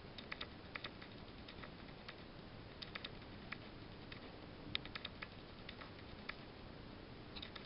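O gauge three-rail model train rolling along tinplate track: sharp, irregular clicks of its metal wheels crossing rail joints and turnouts, over a faint steady hiss.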